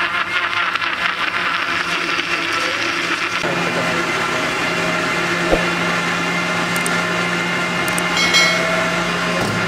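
Electric blender running steadily, mixing a milk and ice-cream shake. About three and a half seconds in, the sound changes to a steadier low hum, with one sharp click a couple of seconds later.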